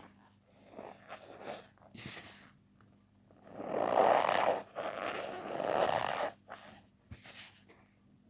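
Cornstarch powder being pressed and worked, giving a squeaky, crunching rasp: a few faint crackles, then two long squeaky crunches in the middle, then a few softer ones.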